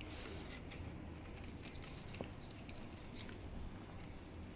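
Faint, scattered small clicks and light scraping from small hand tools being handled.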